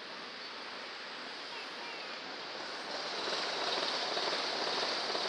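Rushing, lapping water close to a microphone at the waterline, getting louder about three seconds in.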